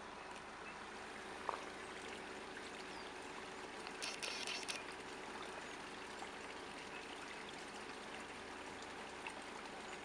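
Steady, even hiss, with a brief louder hiss about four seconds in and a single faint click about a second and a half in.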